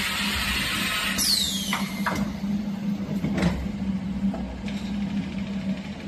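Automated battery-lid sealing machine at work: a loud hiss of compressed air that ends in a falling whistle, then a few sharp clunks from the press and conveyor, over a steady machine hum. A fainter hiss starts near the end.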